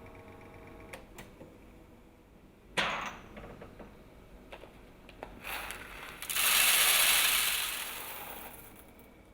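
Schaerer automatic coffee machine working: a steady motor hum stops about a second in, then clicks and a sharp clack near three seconds, followed by a loud hiss that swells and slowly fades.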